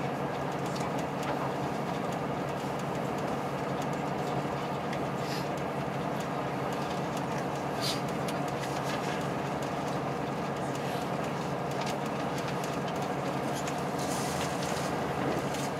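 Steady running noise of a diesel limited express train heard from inside the passenger car: engine and wheels on the rails at a constant level, with a few faint clicks.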